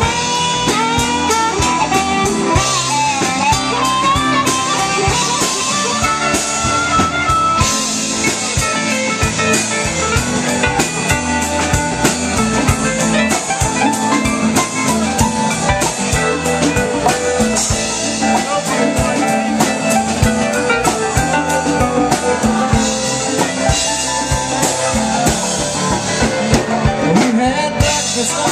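Live band playing an instrumental passage: electric guitars over drum kit and bass, with a bending lead melody line during the first few seconds.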